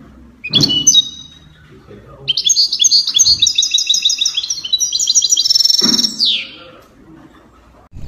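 Songbird chirps used as a logo-intro sound effect. A short call comes with a soft thud about half a second in, then a rapid run of bright chirps and trills lasts about four seconds and ends in a falling glide.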